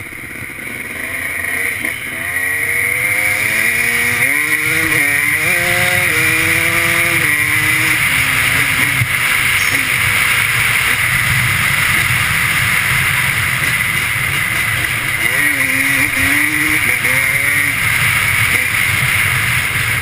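Honda 250 two-stroke off-road engine under way, its pitch climbing in steps and dropping back as it revs up through the gears, twice, with steady wind rush over the helmet-mounted microphone.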